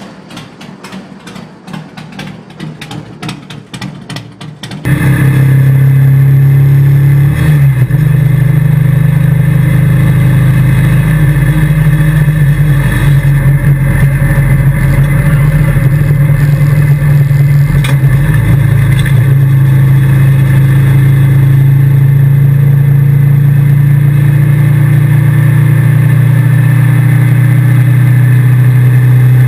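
An 1100 cc V-twin engine swapped into a stripped race car. First comes a few seconds of quieter, irregular clattering. Then, about five seconds in, it cuts to the engine running hard under load, heard loud from inside the cabin as a steady drone, with brief dips in pitch twice.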